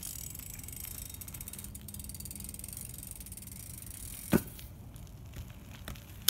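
BMX bike's freewheeling rear hub clicking rapidly as it coasts over asphalt, then a single sharp knock about four seconds in as the bike meets the wall.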